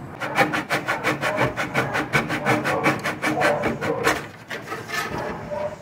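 Fine-toothed flush-cut saw laid flat on solid wood, sawing off a protruding wooden dowel flush with the surface in quick, even strokes, several a second.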